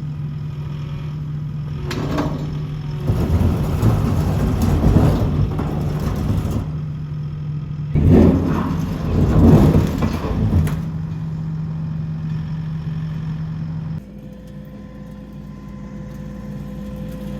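Skid steer engine running steadily, working harder in two loud spells about three and eight seconds in. It drops to a quieter, steadier run about fourteen seconds in.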